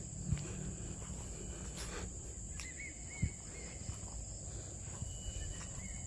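Garden ambience: a steady high insect hum, a few faint bird chirps about halfway through, and two soft thumps.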